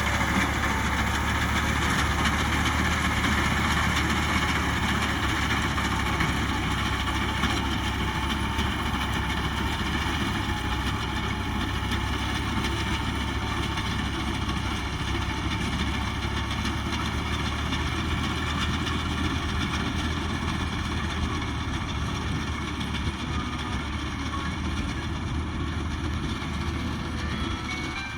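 Fiat 480 tractor's diesel engine running steadily while working a front-mounted reaper in wheat, growing slightly quieter toward the end.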